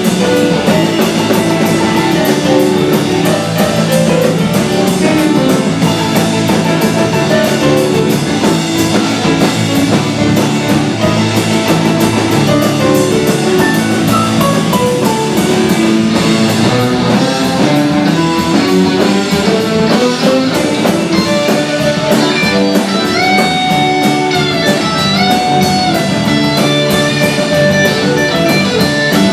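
Rock band playing live: an electric guitar lead over a drum kit. The guitar plays a run of notes down the scale and back up, then long held notes near the end.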